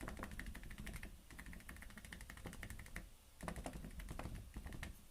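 A paintbrush dabbing rapidly against the painting surface in quick light taps, as in stippling foliage. The taps come in two runs with a short pause about three seconds in.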